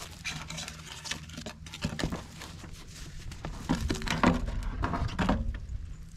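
Rustling, scraping and knocks of the lid being lifted off a septic pump basin, with steps on dry grass and leaves; the loudest knocks come about four to five seconds in.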